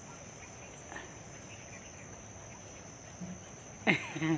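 Insects chirring steadily at one high pitch in the background. Near the end comes a short, loud vocal exclamation that falls sharply in pitch.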